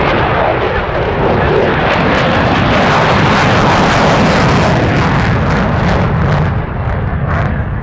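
Aircraft flying past: a loud engine roar that builds to a peak about three to four seconds in and falls away after about six seconds.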